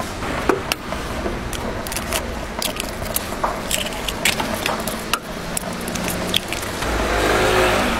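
Sharp clicks, taps and light scrapes of hands and utensils on a cast-iron egg bread griddle, with eggs cracked into its moulds near the end, over steady street background noise.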